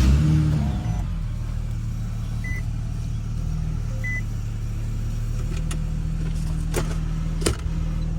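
Infiniti G37's 3.7-litre V6 starting up, the revs flaring briefly and then settling into a steady idle, heard from inside the cabin. Two short high beeps sound a few seconds in, and two sharp clicks near the end.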